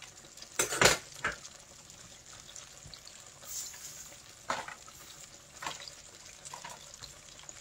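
Battered chicken pieces deep-frying in a stainless steel stockpot of hot oil: a steady bubbling sizzle, with a few sharp clicks and knocks, the loudest just under a second in.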